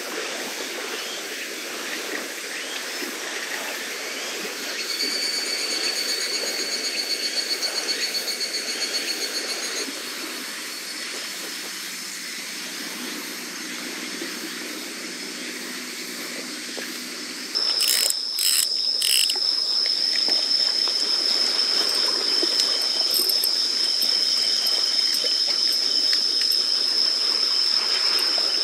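Insects singing: a pulsing high-pitched chirring for about five seconds, then, from about two-thirds of the way in, a loud steady high-pitched trill with a rapid pulsing over it that carries on to the end.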